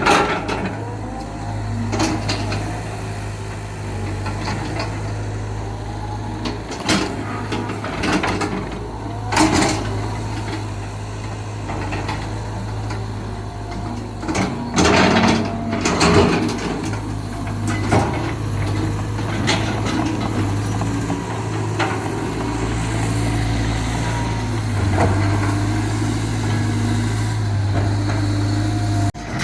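Caterpillar 320 GC hydraulic excavator working, its diesel engine running steadily under load. Intermittent metallic clanks and scraping knocks, several of them loud, stand out over the engine.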